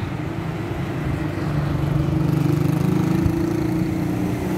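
Road traffic: a motor vehicle engine running close by, its low hum growing louder about halfway through and then easing slightly.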